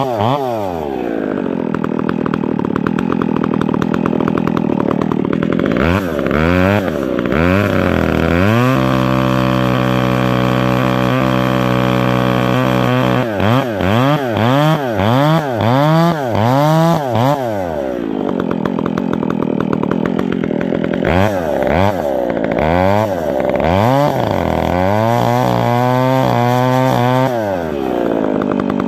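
Two-stroke chainsaw with a square-hand-filed chain cutting into a tree trunk, cleaning up the face cut. The engine is held steady at high speed for stretches and revved up and down repeatedly in between, dropping back near the end as the cut is finished.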